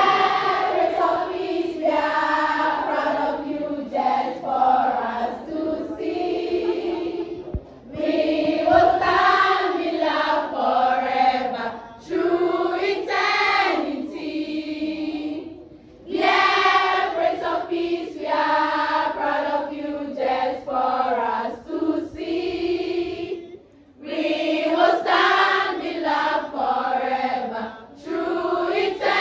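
A large group of schoolgirls singing together as a choir, in phrases of a few seconds each with short breaks between them.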